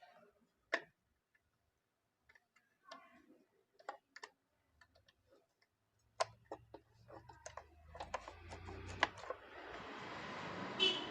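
Scattered small clicks and taps of hand work on chainsaw carburetor parts, coming faster in the second half, with a low hum and a rushing noise that builds toward the end.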